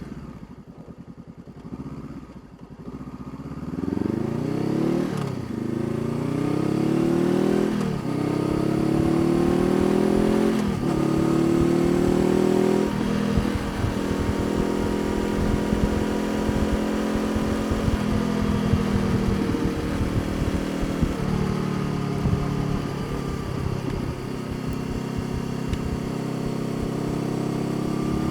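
Honda CBR500R parallel-twin engine on the move: it pulls from low revs with the pitch climbing and dropping sharply at each of four upshifts, then settles into a steady cruising note with small changes in throttle.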